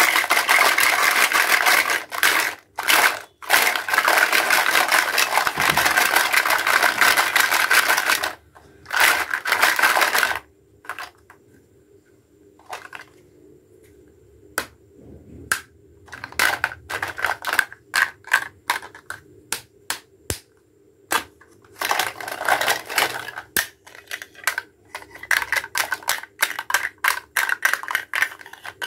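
Plastic toy fruit and vegetable pieces clattering and rattling together in a plastic basket as it is shaken and rummaged through. The steady rattling breaks off after about eight seconds into a run of separate sharp clicks and knocks as pieces are picked up and put down, then dense rattling comes back near the end.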